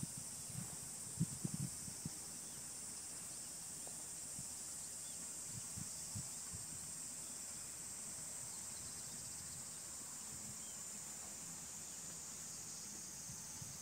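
Insects chirring steadily in a continuous high-pitched drone, with a few soft low thumps in the first two seconds.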